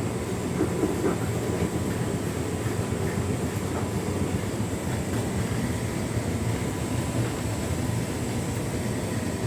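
Hotpoint Ultima S-line tumble dryer running on its Heat and Enjoy warming setting: a steady low rumble of the drum going round and the warm air blowing.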